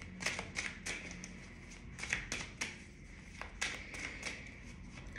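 Tarot cards being handled and laid down on a table: a string of light, irregular clicks and taps.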